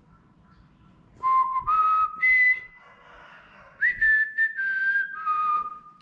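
Cockatiel whistling a tune: three clear notes stepping upward, a short pause, then a higher note followed by a run of notes stepping down.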